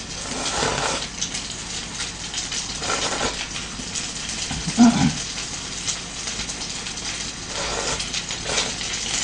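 Oil sizzling steadily in a frying pan around a giant mozzarella cheese stick. Close-up slurping and chewing of cup noodles comes and goes over it, with a short hum about five seconds in.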